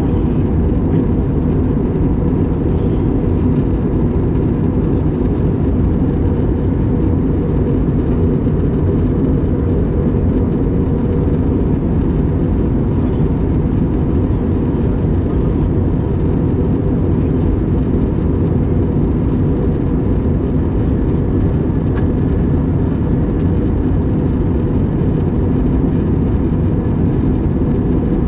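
Steady cabin noise inside an Airbus A321neo airliner on approach to land: an even, low rush of airflow and engine drone, with a faint steady tone above it.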